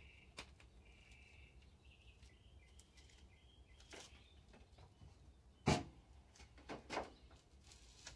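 Low background noise with a few scattered clicks and knocks of someone handling equipment, the loudest about six seconds in and two more just after. Faint chirping in the first few seconds.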